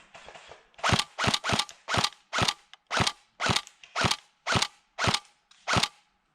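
Airsoft gun firing about eleven single shots in quick succession, roughly two a second, each a sharp mechanical crack.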